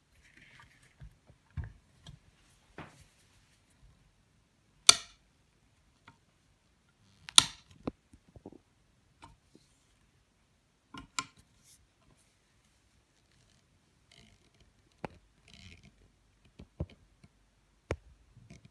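Handling noise from a rifle and the phone filming it being moved: scattered soft knocks and rustles with short sharp clicks, the two loudest about five and seven and a half seconds in.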